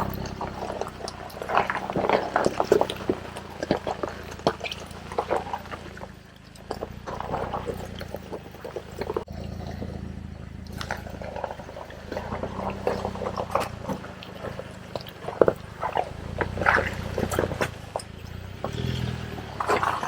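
Jeep engine running low and steady while the vehicle crawls along an off-road trail, with frequent short creaks, squeaks and knocks throughout.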